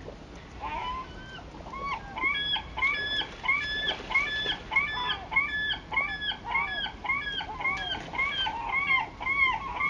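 A bird calling over and over, about two calls a second, each call a short arched note with a strong overtone, starting about a second in and going on steadily.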